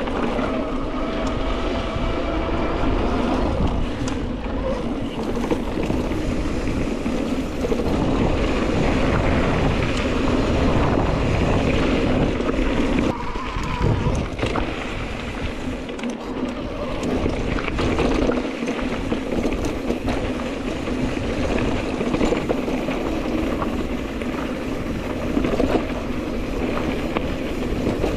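Mountain bike being ridden on a dry dirt singletrack: a steady rush of tyre and bike noise with wind on the microphone.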